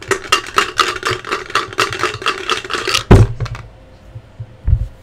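Dice rattling inside a cup, shaken with rapid clicking for about three seconds, then the cup brought down on the table with a loud thump. A softer knock follows near the end.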